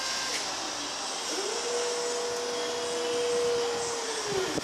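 Electric hydraulic pump motor of a Linde E35P electric forklift whining at a steady pitch as the mast lifts the forks, spinning up about a second and a half in and winding down near the end.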